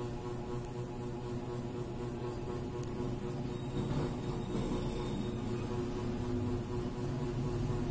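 A steady low mechanical hum made of several constant tones.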